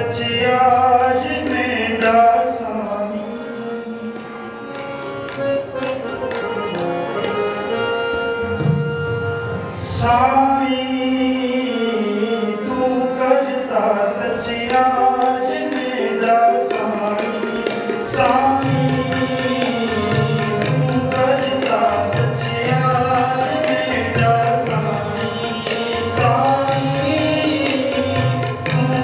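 Sikh kirtan: harmonium melody with tabla accompaniment and a male voice singing. The tabla strokes come in more strongly about ten seconds in.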